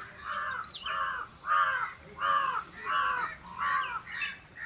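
A crow cawing over and over, about one caw every half second or so, with smaller birds chirping higher up.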